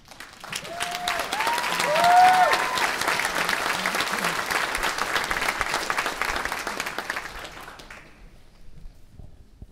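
Theatre audience applauding, with a few short cheers rising over the clapping in the first three seconds. The applause swells, holds, then dies away about eight seconds in.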